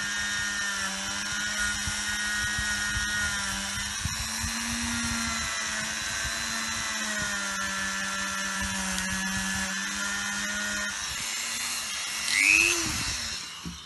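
A Dremel rotary tool with a small wheel attachment runs with a steady high whine, its pitch dipping slightly now and then. It is buffing the rusty connections of a small electric toy motor clean. Near the end the whine gives way, there is a brief louder rise and fall in pitch, and the sound stops.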